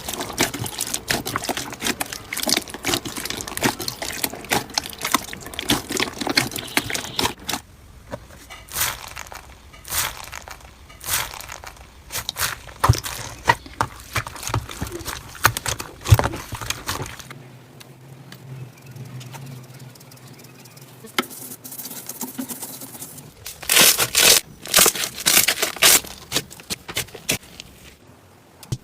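Slime being squished and pressed by hand, making a dense run of small crackling pops and clicks. The crackling thins to scattered pops partway through, goes quieter for a few seconds, then comes back dense near the end.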